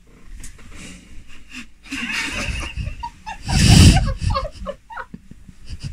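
Stifled giggling and breathy snickers from people trying not to laugh, in short broken bursts. About three and a half seconds in comes a louder burst of rustling from bedding and sleeping bags as someone leans onto the bed.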